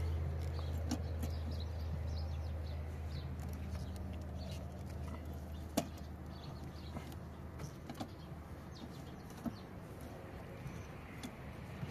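Hand tools clinking and tapping on a car's bare wheel hub and brake parts, with a sharp click about six seconds in, over a low steady hum that slowly fades.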